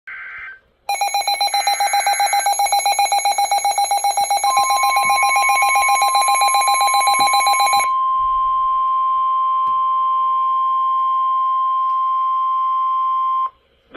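Emergency alert tones. Shrill digital data bursts come at the start. A rapidly pulsing alarm beep runs until about eight seconds in. The steady 1050 Hz weather warning alarm tone starts about four and a half seconds in and holds until it cuts off just before the end. This sequence is the header and attention signal that opens a severe thunderstorm warning broadcast.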